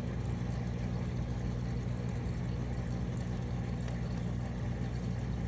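Aquarium filters running with a steady low hum, under a few faint, scattered clicks from clown loaches grinding their pharyngeal teeth as they feed.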